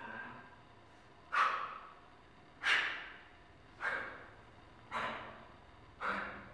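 A small hammer striking in a steady rhythm, five blows a little over a second apart, each trailing off briefly.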